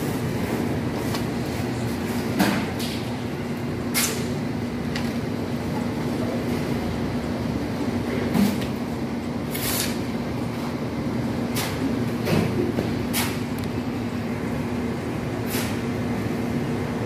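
Irregular sharp scrapes and knocks of masonry work, a trowel or shovel working mortar and concrete hollow blocks being set down, over a steady machine hum.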